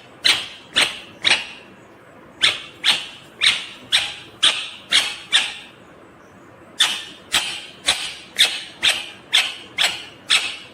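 Indian ringneck parrot calling: short, shrill, repeated shrieks about two a second, in three bouts with short pauses between them.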